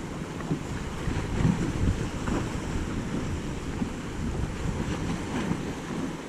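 Wind buffeting the microphone in uneven gusts, over the wash of water.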